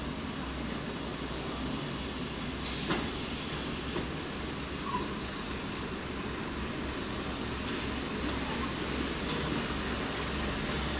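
British Rail Class 108 diesel multiple unit running slowly into a platform, its underfloor diesel engines giving a steady low rumble that grows a little louder as it approaches. There is a brief sharp noise about three seconds in, and a few faint clicks later.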